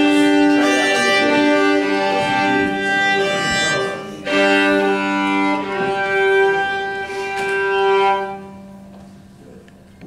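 Two fiddles playing long bowed notes together over upright bass. The music stops about eight and a half seconds in and rings away.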